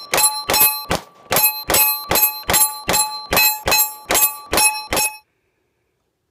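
Rapid 9mm pistol fire at a half-inch AR500 steel silhouette target, each shot answered by the plate's ringing, about two to three shots a second with one brief pause. The string cuts off abruptly about five seconds in.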